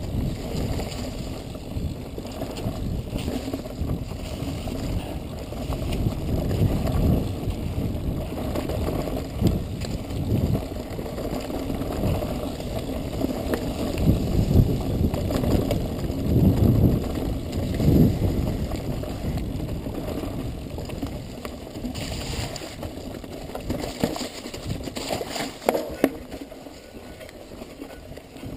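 Mountain bike descending a rough, leaf-covered dirt trail: a steady rumble of tyres and wind, broken by irregular knocks and rattles from the bike over rocks and roots, heaviest about halfway through and easing near the end.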